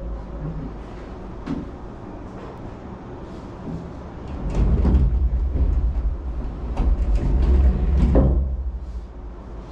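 Lift doors sliding and knocking over a low rumble, getting louder twice, about five and eight seconds in.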